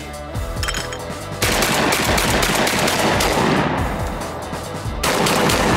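Two shotgun blasts, about a second and a half in and again near the end, each trailing off after the sudden crack, over background music.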